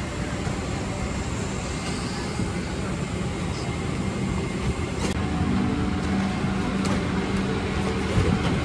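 Steady air-conditioning hum inside a Boeing 777-300ER cabin at the gate during boarding, with a few sharp clicks and knocks from about five seconds in.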